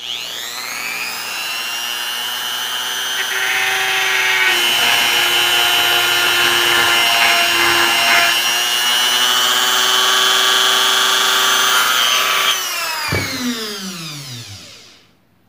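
Handheld electric rotary tool switched on with a click, spinning up to a steady high whine as its small bit grinds the eye hole wider in a spoon-handle lure blank; it gets louder about four seconds in. Near the end it is switched off and winds down, its pitch falling away.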